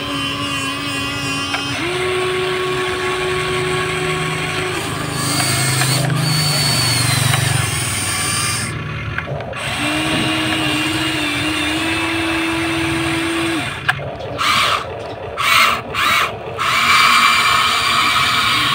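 Huina 1593 remote-control excavator's electric motors and plastic gearboxes whining as the boom, arm and bucket move, a steady hum that steps up and down in pitch as different functions run. Near the end the motors cut out and restart several times in short spells.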